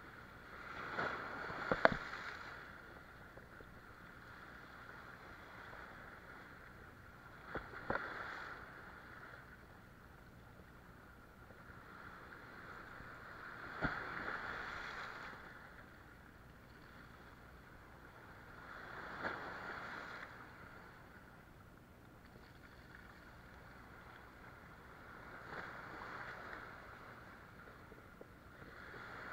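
Sea waves washing in over shoreline rocks in slow surges about every six seconds, each swelling and falling away. Several surges open with a sharp click or slap.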